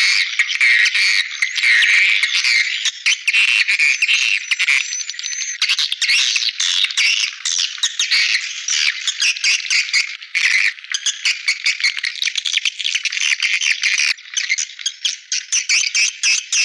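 Swiftlet lure call: a dense, continuous chattering and twittering of many swiftlets, full of rapid clicking trills, high-pitched and thin. This is the kind of call recording that swiftlet farmers play to draw swiftlets into a nesting house.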